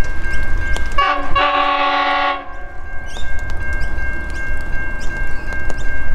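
Horn of the NR-class diesel locomotive leading the Overland, sounded once about a second in as a multi-note chord lasting about a second and a half.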